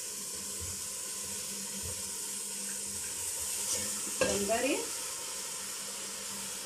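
Onion, vegetables and seafood frying in ghee in a steel pot, a steady sizzling hiss, with a few soft knocks as crab sticks and shrimp are pushed in with a spoon and stirred.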